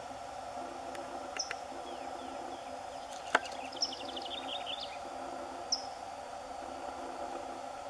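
Small birds chirping in short, quick series and brief high notes over a steady insect drone. A single sharp click comes about three and a half seconds in.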